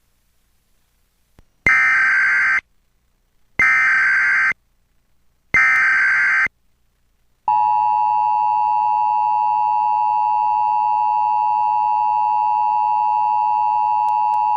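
Emergency Alert System broadcast tones. First come three one-second bursts of warbling digital data tones, the SAME header, evenly spaced about two seconds apart. About a second later the EAS attention signal starts: a steady two-tone alert made of 853 and 960 Hz sounded together.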